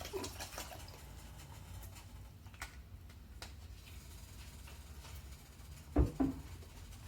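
Quiet kitchen handling noise: a faint steady low hum with a few light clicks, then two knocks close together about six seconds in.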